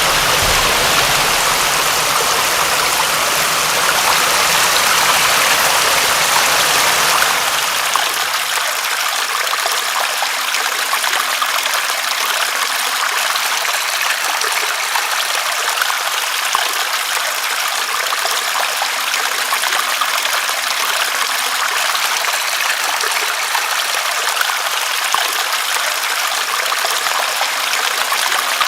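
Steady rain and running water, a continuous hiss with fine pattering. About seven seconds in, the deeper rumble drops away, leaving a thinner, brighter hiss.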